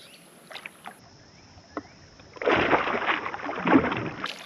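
Water splashing and churning at the surface for about two seconds, starting a little past the middle.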